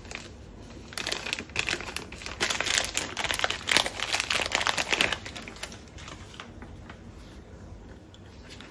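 Clear plastic bag crinkling as a handheld radio is worked out of it: a dense run of crackles from about a second in until about five seconds in, then only light handling.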